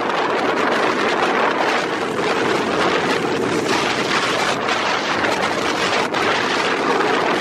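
Steady rushing wind noise on the microphone of a camera moving at road speed, with road noise mixed in; it stops abruptly at the end.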